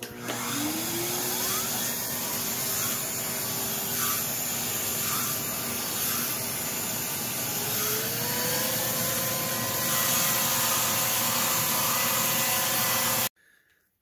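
Aspiron CA006 canister vacuum cleaner running with its pet brush attachment pushed over a fabric pet bed: a steady motor-and-suction noise. Its pitch rises about a second in and again around eight seconds in, and it stops suddenly near the end.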